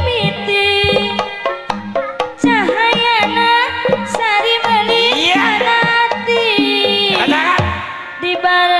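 Sundanese jaipongan ensemble playing live: kendang hand-drum strokes drive the rhythm under a melody that slides and bends in pitch, with gamelan tones behind.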